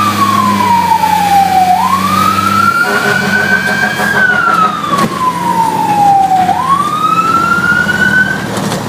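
Fire truck siren in a slow wail, sweeping up and down in cycles of about four to five seconds over the truck's running engine. The wail stops shortly before the end.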